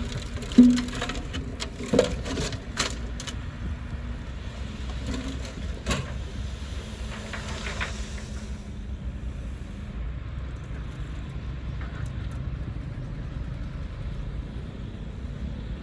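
Diesel engine of heavy earthmoving equipment running steadily with a low rumble, with sharp knocks and snaps scattered through the first half.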